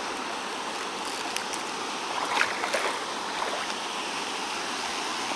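Steady rush of river water spilling over small waterfalls, with a few short, sharper splashes and clicks about two to three seconds in.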